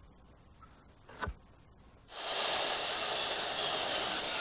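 Handheld circular saw crosscutting a pressure-treated board to its measured length. A light click about a second in, then the saw starts suddenly about halfway through and cuts with a steady, loud, hissing noise and a faint high whine.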